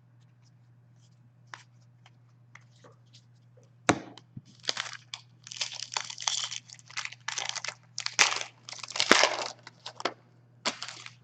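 A trading-card pack's foil wrapper being torn open and crinkled by hand. A sharp crack about four seconds in, then a run of tearing and crinkling, after a few faint handling clicks. A steady low electrical hum runs underneath.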